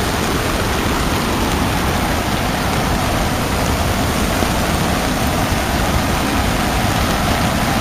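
Steady rush of fast-flowing floodwater pouring over and along the washed-out edge of a paved road, with rain falling.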